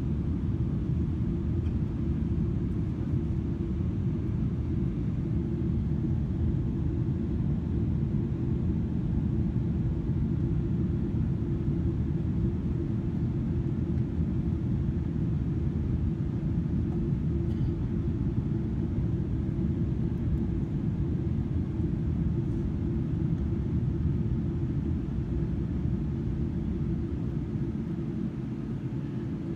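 Steady low rumble inside the cabin of a Boeing 777-300ER in flight: airflow and GE90 engine noise heard from a window seat. It eases slightly near the end.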